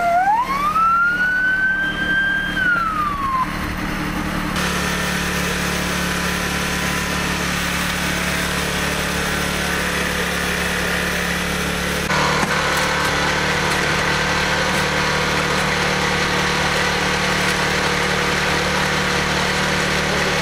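Emergency vehicle siren rising in pitch, holding, then falling away and stopping about three and a half seconds in. After it comes a steady mechanical hum with general background noise, which grows a little louder about twelve seconds in.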